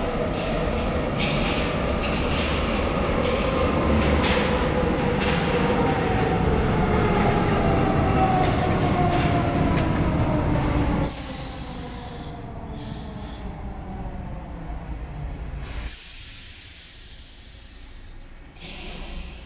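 Paris Métro line 12 MF67 train running with a whine that falls steadily in pitch as it slows, then going much quieter about eleven seconds in as it comes to a stop. Several short bursts of air hiss follow in the second half.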